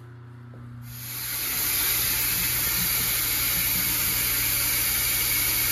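A steady, strong hiss of rushing air, like compressed air, starts about a second in and builds to full strength. A low, steady machine hum runs beneath it.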